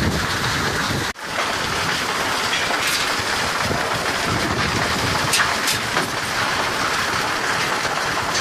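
Vibrating grizzly feeder of a rock crushing plant running loaded with limestone, the rocks rattling and grinding over the steel bars and dropping into the chute, in a steady dense clatter with a brief break about a second in.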